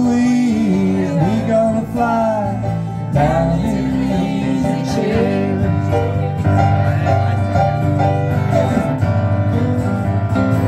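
Live acoustic band playing an instrumental break: acoustic guitar strumming a steady rhythm while a fiddle plays a bending melody over it.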